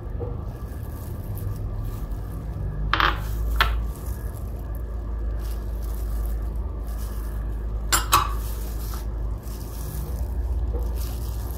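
Small glass bowls clinking lightly against a glass blender jar as spices are tipped in: two pairs of short clinks, about three seconds in and again about eight seconds in, over a steady low hum.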